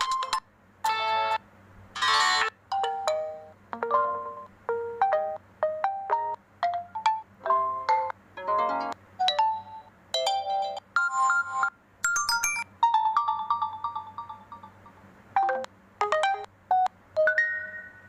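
A run of the OPPO A5s's built-in ringtone and alert tone previews: short melodic tone phrases, one after another, each starting abruptly and cut off after a second or less as the next tone is selected.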